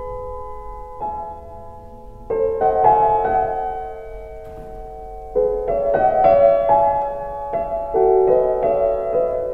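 Background music: a piano playing slow chords, a new chord struck every second or two and left to ring.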